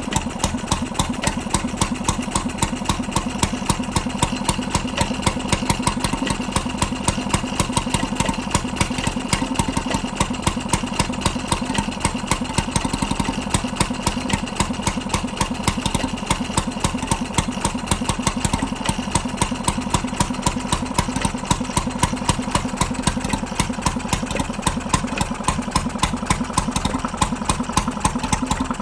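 Petter 'appletop' 3 hp stationary engine running steadily at idle, with an even, regular beat of firing strokes.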